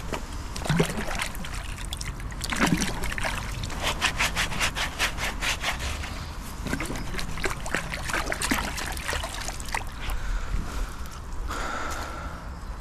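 Splashing and swishing as a muddy metal find is rinsed by hand in canal water, with a fast run of strokes about four to six seconds in.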